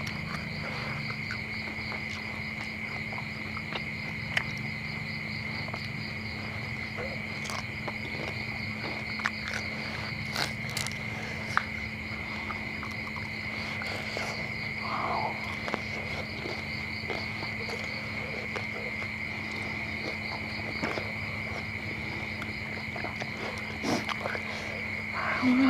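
Crickets trilling in a steady, unbroken night chorus, with a few short clicks and crunches as crispy fried frog is eaten.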